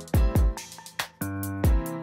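Background music with an electronic beat: deep kick-drum hits, a few to the second, under held chords and quick high ticking percussion.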